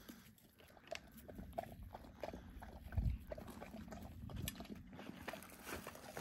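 Belgian Malinois panting and sniffing at the ground in a quick run of soft breaths, with a dull thump about three seconds in.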